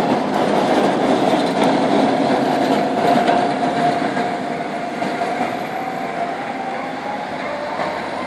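Tram running around a curve on its rails, its wheels squealing with one steady high tone that rises slightly near the end. The rolling rumble slowly fades as the tram pulls away.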